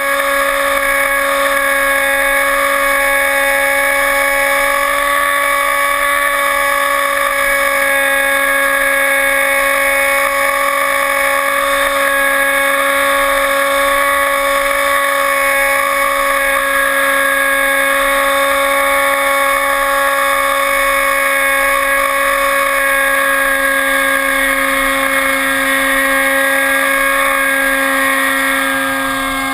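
Electric motor and propeller of an RC airplane whining steadily at near-constant throttle, easing off briefly near the end.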